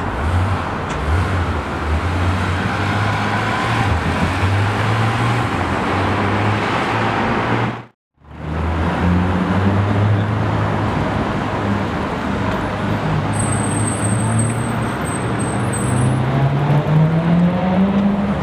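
Porsche 911 GT3 RS flat-six running at low revs as it drives slowly by. After a sudden cut, a Ferrari 458's V8 runs at low revs, its pitch rising near the end as it accelerates.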